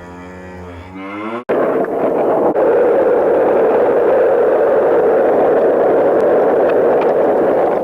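A drawn-out, moo-like lowing call, cut off abruptly about a second and a half in by a loud, steady rushing roar.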